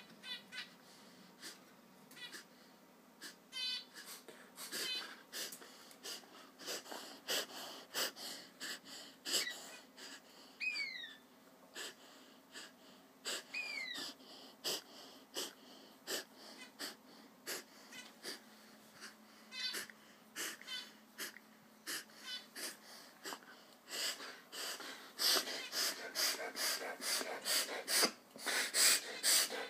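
Dog reverse sneezing: rapid, repeated wheezing snorts as it pulls air in hard through the nose, coming in bouts that grow faster and louder near the end.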